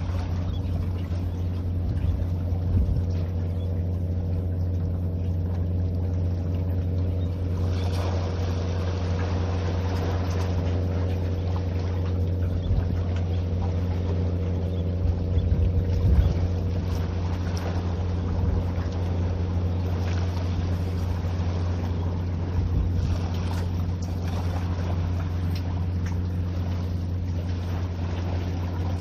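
A steady low engine drone, even throughout, over a light hiss, with a few brief knocks a little past the middle.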